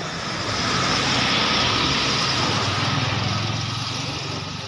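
Small motorcycle engine running close by with a steady hum. It grows louder about a second in, then slowly fades as the bike goes past.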